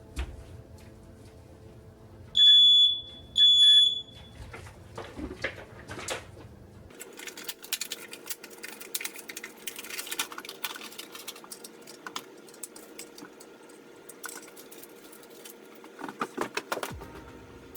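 Smoke alarm giving two loud, high-pitched beeps about two and a half seconds in, each just over half a second long. After them come quick, irregular clicks and knocks.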